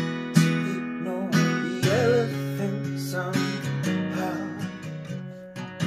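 Acoustic guitar strumming and letting chords ring, about one stroke a second, in an instrumental break between sung lines of a slow country song.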